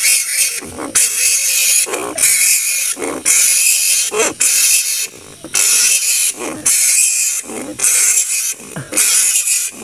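Large flying foxes (kalong) screeching: harsh, squealing calls repeating about once a second. This is a recording used as a lure call for hunting them.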